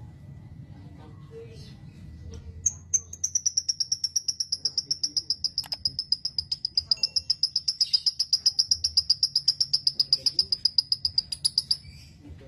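A bird's long, rapid high-pitched trill of about ten notes a second, starting about three seconds in on a slightly higher note and running for about nine seconds before stopping sharply. Faint scattered chirps come before it.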